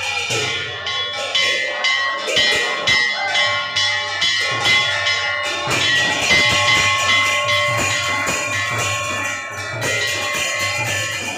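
Temple bells clanging rapidly and without pause, their ringing tones overlapping, with a low beat pulsing underneath.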